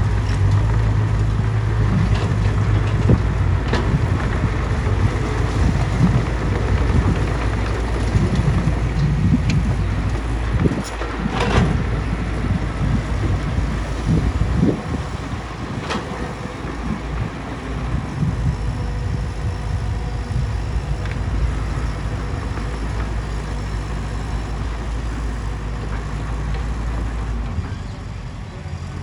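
Bulldozer's heavy diesel engine running under load, with its low note shifting a couple of times. A few sharp metallic clanks sound through it.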